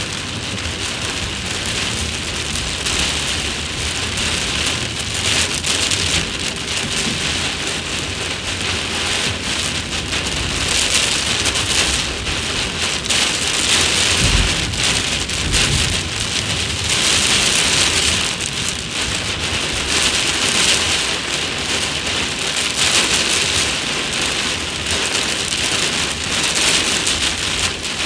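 Very heavy rain pounding on a car's windshield and roof, heard from inside the car: a loud, dense hiss that swells and eases every few seconds. Two brief low thumps come about halfway through.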